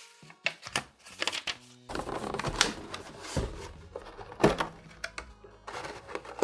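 Paper rustling as a folded quick start guide is handled, then a clear plastic blister tray crinkling and clicking as a gaming headset is worked loose from it, with one sharp plastic snap about four and a half seconds in.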